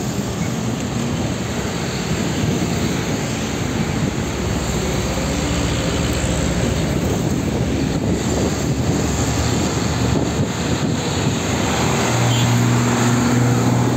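Heavy diesel trucks and motorcycle traffic passing close by: continuous engine and tyre noise. About twelve seconds in, a steady low engine drone comes up as a truck pulls alongside.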